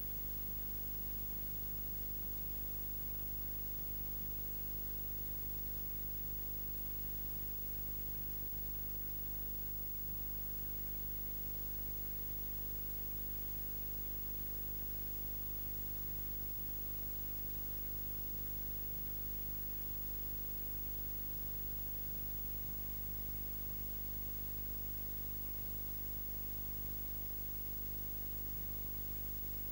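Steady electrical hum with a constant hiss and no live sound: the camcorder's microphone was unplugged during recording.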